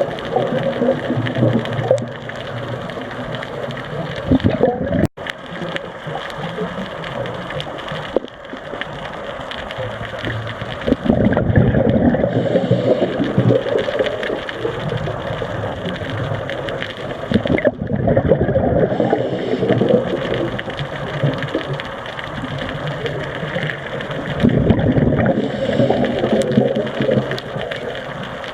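Scuba diver breathing through a regulator underwater: loud bubbling spells of exhaled air every five to eight seconds, with quieter stretches of breathing between.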